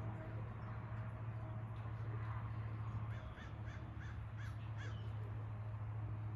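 A bird calling: a quick run of about six short calls about halfway through, over a steady low hum.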